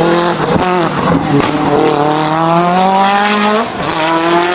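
Mitsubishi Lancer Evolution's turbocharged four-cylinder engine pulling hard under acceleration. Its pitch dips about a second in, climbs steadily for about two seconds, then drops sharply near the end, as at gear changes. A few sharp crackles come in the first second or so.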